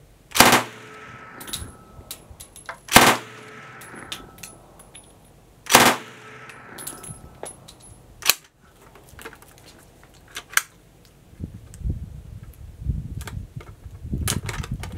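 PPSh-41 submachine gun in 7.62×25 mm Tokarev firing three short bursts of automatic fire a few seconds apart, each followed by an echo rolling back off the range. After them come a couple of fainter sharp clicks and rustling.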